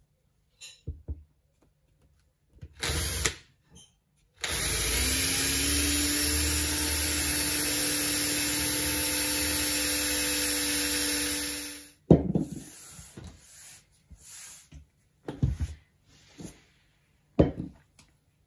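Cordless drill running for about seven seconds, boring a small hole through a threaded PVC pipe; its motor tone rises a little as it spins up, then holds steady until it stops abruptly. A short burst comes a few seconds before, and scattered knocks and clicks follow.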